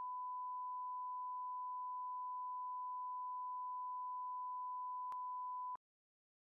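Bars-and-tone test signal: a steady, pure reference tone of the kind laid under SMPTE colour bars. A brief click falls about five seconds in, and the tone cuts off suddenly near the end.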